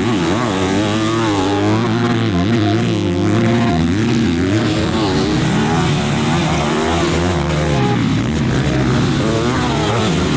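Motocross bike engine being ridden hard on a dirt track, revving up and backing off over and over as the rider accelerates, shifts and brakes.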